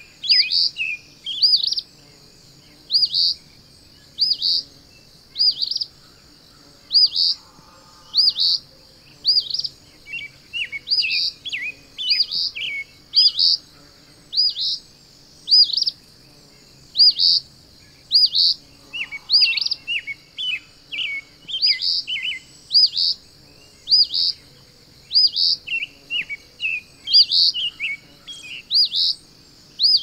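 Small songbird chirping: high, hooked chirps about once a second, often in pairs, with runs of lower, quicker twittering notes in between.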